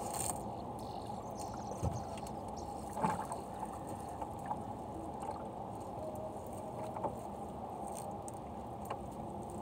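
Gill net being hauled by hand into a small fishing boat: a steady background rush, with a few soft knocks and scattered light clicks and drips as the wet net comes over the side.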